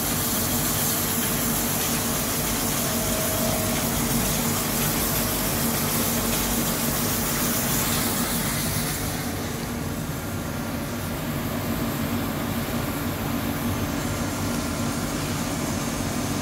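HüllerHille NBH 170 CNC machining center running steadily while its roughing head rough-bores a hole at about 200 rpm under flood coolant, with a steady low hum and the hiss of coolant spraying. The hiss drops away about nine seconds in.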